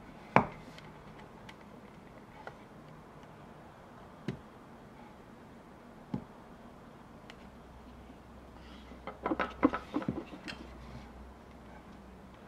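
Hand carving tool working a wooden skull. A sharp click about half a second in, then a few lighter clicks about two seconds apart, then a quick run of short cutting and scraping strokes around nine to ten seconds in.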